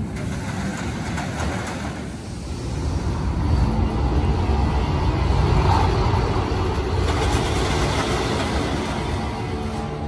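Steel roller coaster train rolling through its brake run, its wheels rumbling on the track. The rumble swells about three and a half seconds in and eases off near the end.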